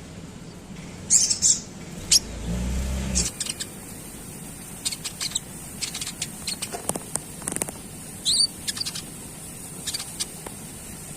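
Konin bird calls: short, sharp high chirps and chattering notes, given irregularly, with the loudest calls about one and two seconds in. A brief low hum sounds under the calls around two and a half seconds in.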